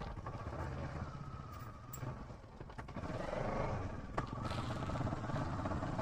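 Kawasaki Versys motorcycle riding at a steady pace, its engine running low and even under wind and road noise. A brief click about four seconds in.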